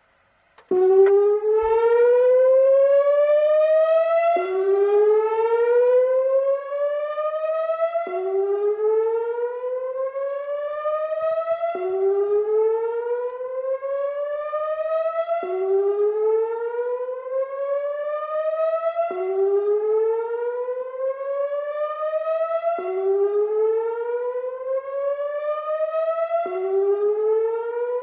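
ATI HPSS-16R electronic speaker siren sounding a whoop signal. Each whoop is a rising sweep that climbs for nearly four seconds, then drops suddenly back to the low pitch and starts again. The siren comes on about a second in.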